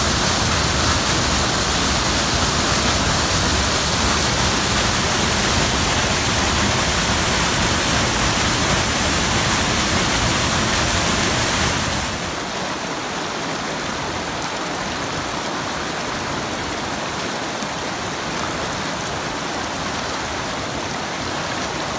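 Brown floodwater rushing and pouring over a rocky cascade: a loud, steady rush of water. About twelve seconds in it becomes a little quieter and loses its deep rumble.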